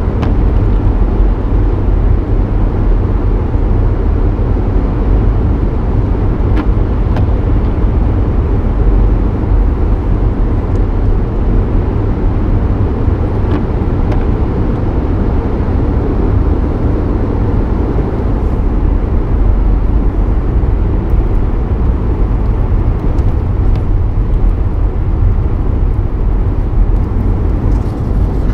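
A car driving slowly: a steady low rumble of engine and road noise.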